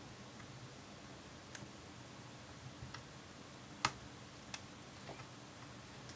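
A few faint, sharp clicks and ticks of a small hand tool against the MacBook Pro logic board and its microphone connector while the tape over the connector is picked off. The loudest click comes just under 4 seconds in.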